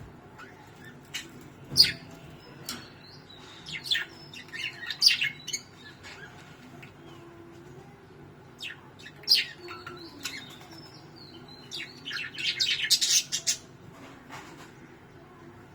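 Small birds chirping in short, sharp, high calls, scattered at first and then a quick run of rapid chirps about twelve seconds in.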